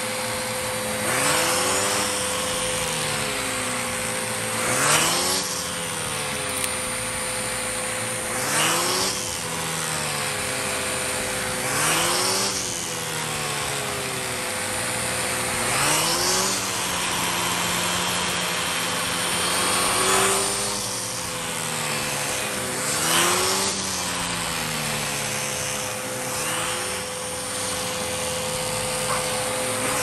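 MOOSOO U1400-PLUS upright vacuum cleaner running steadily with a constant whine, its hose-mounted pet-hair brush attachment being worked back and forth over a fabric couch cushion. The suction swells into a whoosh every three to four seconds with each stroke.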